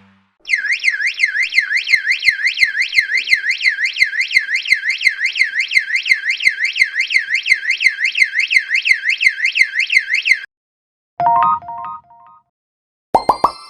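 Electronic alert tone warbling rapidly up and down, about four sweeps a second, for about ten seconds, then cutting off. A short electronic chime of a few stepped notes follows, and near the end a single bright bell-like ding rings out.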